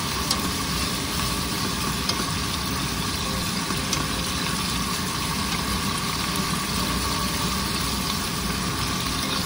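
Beef and onion slices sizzling in a hot pan as they are stir-fried with wooden chopsticks, over a steady mechanical hum. A few faint clicks sound now and then.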